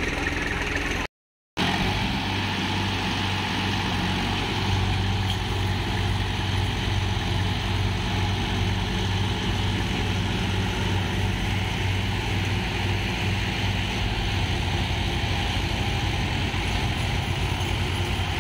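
Swaraj tractor diesel engines running steadily under load while hauling a sand-loaded trailer through shallow river water. The sound cuts out completely for about half a second about a second in.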